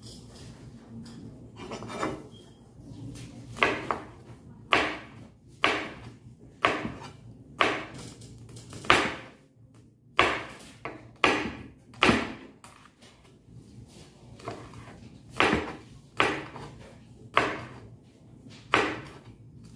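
Kitchen knife chopping green chili peppers on a cutting board: single sharp knocks of the blade on the board, about one a second, starting a few seconds in with a short pause near the middle.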